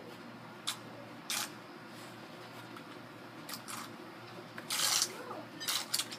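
A few short rustles and clicks from handling the phone and the plastic swing, the longest about five seconds in, over a steady low hum.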